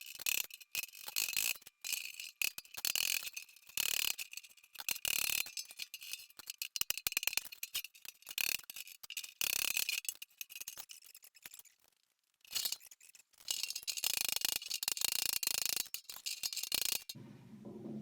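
Bodywork on the steel front fender: quick, irregular rasping and rattling strokes of a hand tool worked over the sheet metal, pausing briefly about two thirds of the way through.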